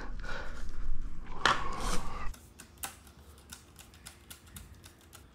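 Plastic roof-rack roller end piece handled and pressed onto the bars, with a rub about one and a half seconds in. Then a hand screwdriver clicks lightly and irregularly, several times a second, as it turns the screw at the joint.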